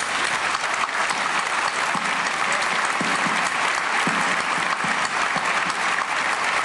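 Audience applause: dense, steady clapping from a large crowd.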